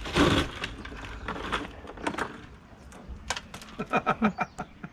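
Crushed ice crunching and plastic bags rustling as a mahi mahi is pulled out of an iced fish box, loudest at the very start, followed by scattered knocks and clicks and a quick run of short sharp sounds near the end.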